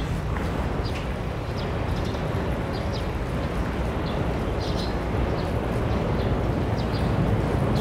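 Outdoor ambience: a steady low rumble with short, high chirps now and then.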